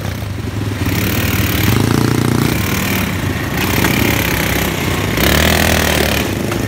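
Quad bike (ATV) engines running as riders drive through a shallow stream, with water splashing under the wheels.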